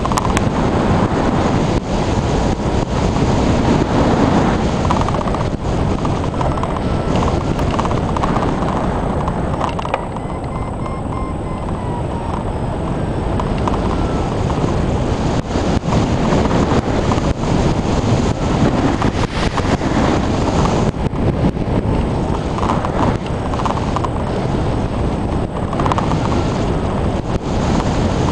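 Airflow rushing and buffeting over the microphone of a camera mounted on a hang glider in flight: a steady, gusty wind noise that eases a little for a few seconds partway through.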